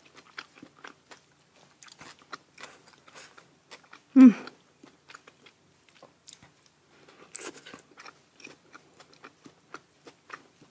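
A person chewing and crunching papaya salad with noodles and raw vegetables close to the microphone, with many small wet mouth clicks. A brief voiced sound from the eater about four seconds in is the loudest moment.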